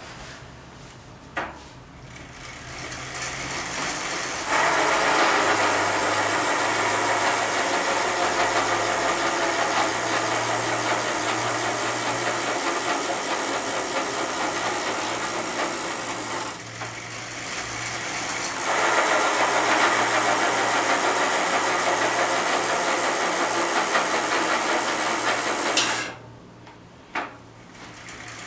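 Rear hub of a 2014 Specialized Crave mountain bike making an unpleasant noise as the wheel turns: something is wrong with the hub or freehub. The noise builds up over a couple of seconds, runs steadily for about twelve seconds, breaks off briefly, then runs for about seven more; a single click comes shortly before the build-up and another near the end.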